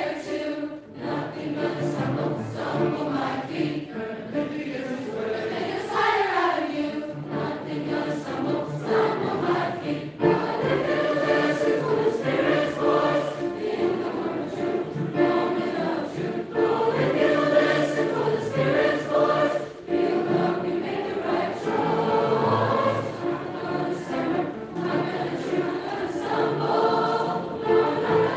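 A large youth choir of boys and girls singing together, holding long sustained chords that move from phrase to phrase.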